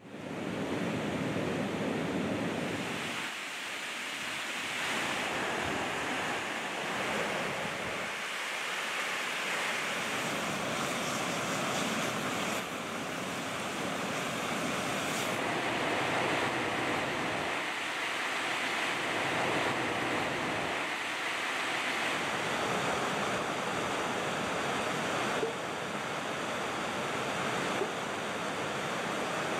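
Rushing mountain river: steady whitewater noise over rocks, its low rumble thinning briefly a few times.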